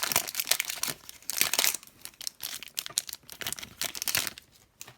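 Wrapper of a hockey trading-card pack being torn open and crinkled, a dense run of crackling that dies away about four seconds in.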